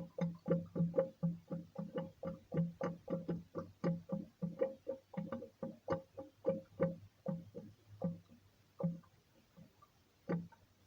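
Sink making a rhythmic twanging noise: short pulses at about three a second, each a click followed by the same steady pitch. The pulses thin out and stop briefly near the end, then start again. The noise began after a countertop dishwasher was installed, though the owner is not sure that is the cause.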